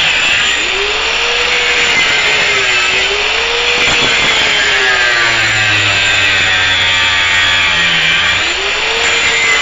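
Harbor Freight Drillmaster 4-1/2 in. angle grinder running under load, grinding metal off a nut. Its motor whine sags and recovers several times as it is pressed into the work, over a steady hiss of grinding.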